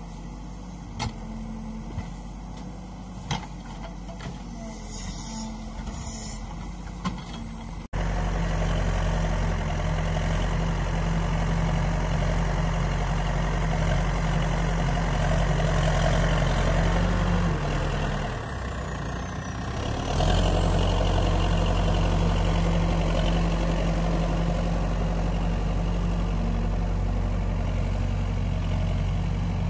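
Backhoe loader's diesel engine working. It is quieter for the first several seconds with a few sharp knocks, then suddenly much louder and steady, easing briefly about two-thirds of the way through before picking back up.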